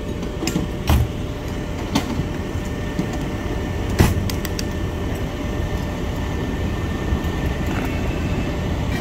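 Parked fire engine running steadily, a low rumble with a faint steady whine, broken by a few sharp knocks of equipment, the loudest about four seconds in.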